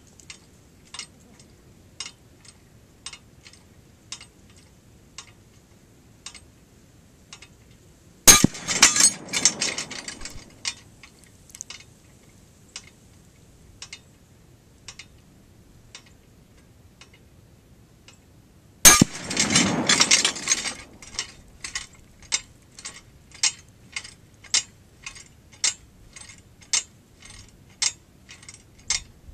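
Swinging AR-500 steel plate target struck twice by .308 rifle bullets, each hit a sharp bang followed by about two seconds of rattling chains and shackles. Between the hits the chains clink lightly with each swing of the plate, about once a second at first and about twice a second after the second hit.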